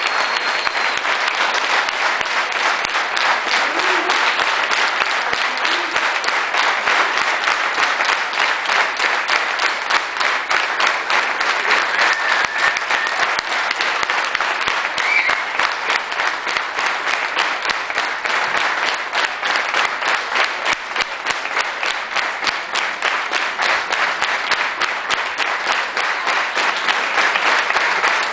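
Audience applauding: a long, steady round of dense clapping with a few faint calls over it.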